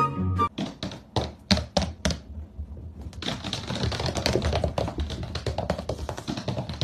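Rapid, irregular taps and clicks: a few separate ones in the first two seconds, then a dense clattering run from about three seconds in. Background music fades out in the first half second.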